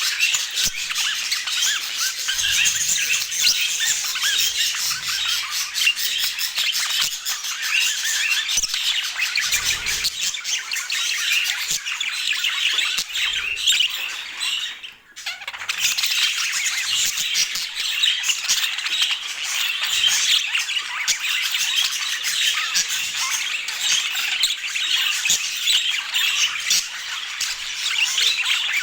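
Budgerigars chattering, chirping and squawking continuously, many calls overlapping, with a brief break about halfway through.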